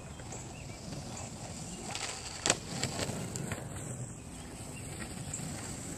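Flexible longboard's wheels rolling on asphalt, a steady rumble, with a sharp clack about two and a half seconds in and a few lighter knocks just after.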